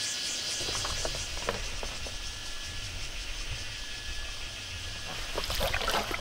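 Water glugging and sloshing in a large plastic water jug as someone drinks straight from it, spilling some. A louder cluster of splashes and plastic knocks comes near the end as the jug is lowered.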